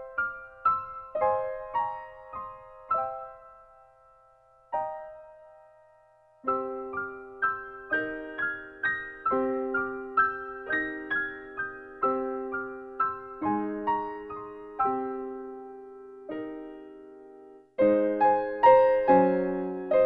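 Background piano music: gentle struck notes and chords that die away, with a short pause about five seconds in, turning louder and fuller near the end.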